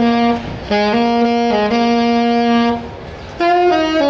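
Alto saxophone playing a slow melody of long held notes that step from one pitch to the next, with a short break near the end before the playing resumes.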